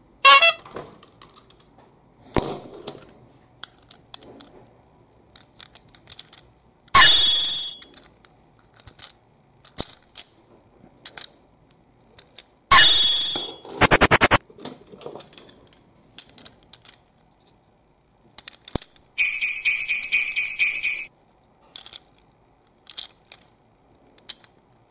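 Small plastic toy trains being handled and turned over, giving scattered light clicks and taps. Two louder buzzing bursts come about seven and thirteen seconds in, and a rapid high chiming sounds for about two seconds near the end.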